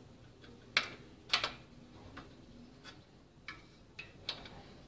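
Irregular light metallic clicks and taps, about eight in all, from a small spanner working the bolt on a bicycle's rim-brake arm as the bolt is loosened.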